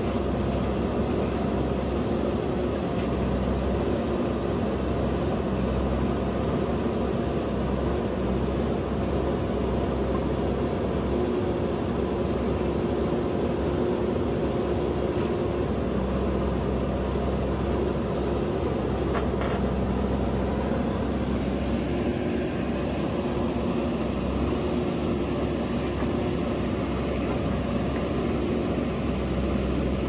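JCB backhoe loader's diesel engine running steadily as it works, a low even hum that swells and eases slightly; a single light knock about two-thirds of the way through.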